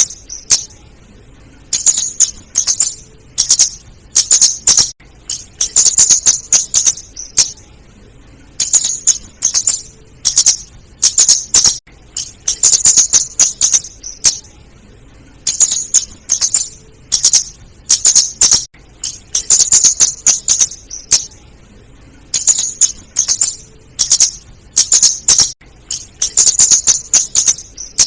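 Female flowerpecker (kemade) calling: rapid, very high-pitched sharp chips in clusters of about a second, repeating every second or two with short pauses.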